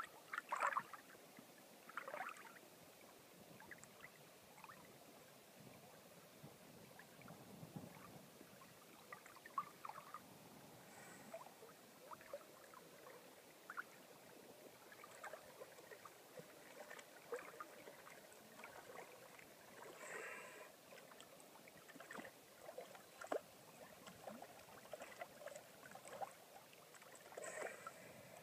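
Faint small splashes and lapping of water close by, coming irregularly every second or two.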